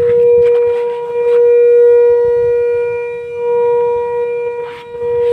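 A Volvo truck making a steady, loud buzzing hum with its engine switched off. It is one held tone with overtones, swelling and dipping in level. The driver cannot trace it; it vanishes when the brake pedal is pressed, and he first took it for the power steering pump.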